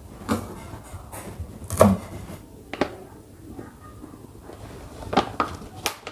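A few sharp, separate knocks of a cleaver on a wooden chopping board, the loudest just under two seconds in. Later come a few lighter clicks as a plastic cooking-oil pouch is handled and poured into a wok.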